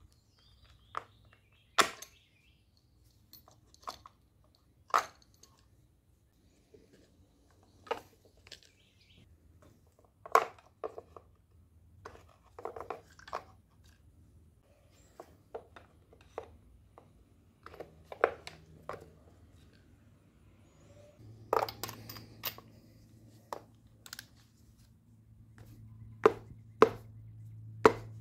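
Irregular sharp clicks and knocks of hand tools and plastic parts as the ignition coil packs are unbolted and pulled off the valve cover of a 1.6 L EcoBoost four-cylinder engine. A low steady hum comes in about three-quarters of the way through.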